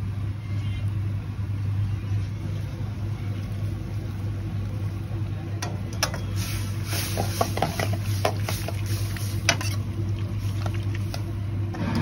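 Metal ladle scraping and clinking against a steel wok as the pasta is stirred and tossed, a run of short sharp strikes from about halfway in, over a steady low rumble.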